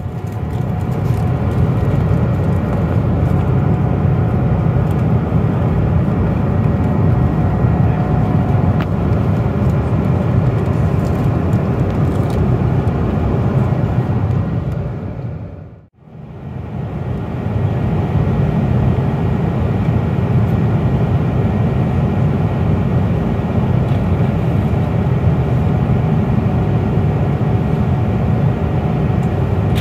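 Steady cabin noise of a Boeing 777-200 in cruise, heard from a passenger seat: an even, deep rush of airflow and engine noise. It briefly fades out and back in about halfway through.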